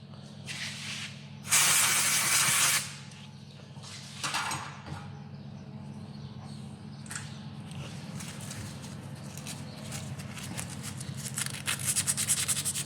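A loud burst of spray hiss lasting about a second, with a couple of shorter sprays around it, as brake parts are cleaned. Fast rubbing strokes pick up near the end, over a steady low hum.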